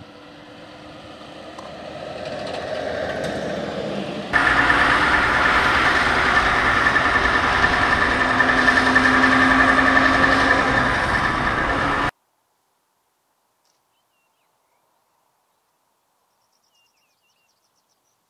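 New-generation Scania truck's engine running, growing louder over the first few seconds. About four seconds in it jumps suddenly to a louder, steady running sound, which stops abruptly about twelve seconds in. Near silence follows, with a few faint bird chirps near the end.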